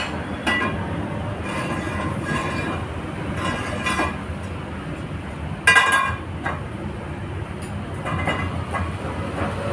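Clanks of a metal motorcycle wheel rim knocking against the steel frame of a rim press, several with a short metallic ring; the loudest is just before six seconds in. A steady low machine rumble runs underneath.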